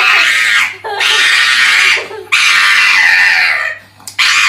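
Four long, loud, harsh screams in a row, with short breaks between them.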